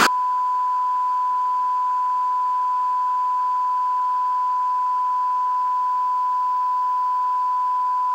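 Steady television test-tone beep of the kind that goes with colour bars: one pure, unchanging pitch held at a constant level, cutting in suddenly at the start.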